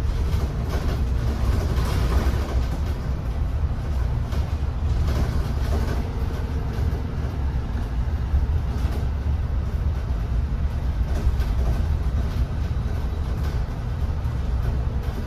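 Steady low rumble and road noise inside a moving bus.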